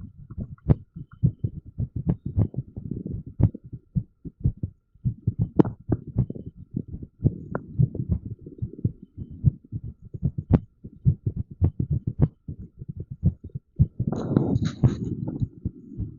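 Amplified human heartbeat, the low thumps coming at an uneven rhythm: an irregular heartbeat. Sharp clicks recur throughout, and there is a brief scratchy rubbing noise near the end.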